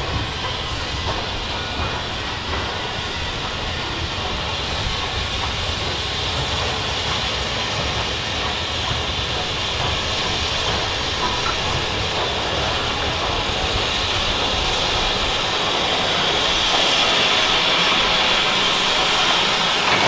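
BR Standard Class 4MT steam locomotive No. 76017 drifting slowly in with its train, wheels rumbling over the rail joints, with a steady hiss of steam. The low rumble dies away after about fifteen seconds as the hiss grows louder and the locomotive draws close.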